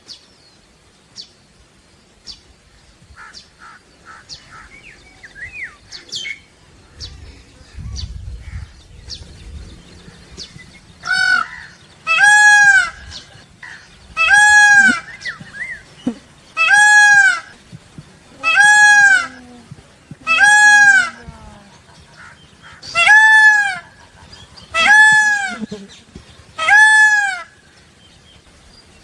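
Peacock calling: about nine loud, ringing calls, each under a second long and repeated roughly every two seconds, starting about a third of the way in. Before them only faint small-bird chirps are heard.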